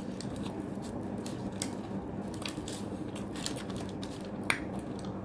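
A person chewing a bite of bread-like food close to the microphone: a run of small, sharp, crisp clicks, one sharper near the end, over a steady low hum.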